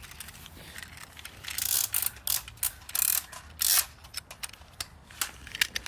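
Nerf blasters being worked: a string of irregular plastic clicks and clacks.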